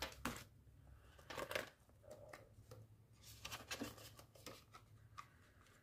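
Faint rustling and crinkling of plastic polymer banknotes and clear plastic envelope sleeves being handled and slid into a cash binder, in short scattered rustles and clicks.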